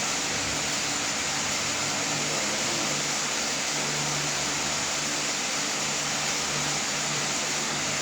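Steady mechanical hiss with a low, even hum that does not change.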